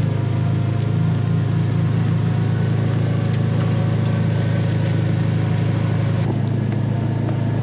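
Side-by-side utility vehicle's engine running steadily as it drives along the field rows, with a slight shift in its note about six seconds in.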